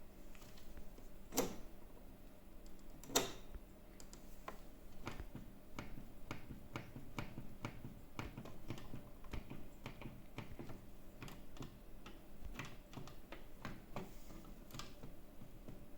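Series of light, irregular mechanical clicks and ticks, with two louder sharp clicks in the first few seconds, over a faint steady hum.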